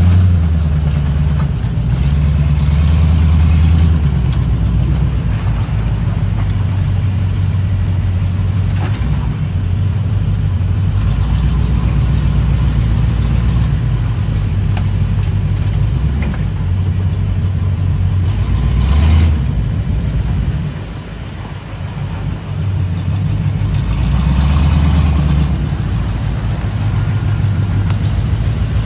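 Off-road square-body wrecker's engine running as it crawls along a muddy trail. It swells and eases with the throttle, drops back briefly about three-quarters of the way through, then picks up again.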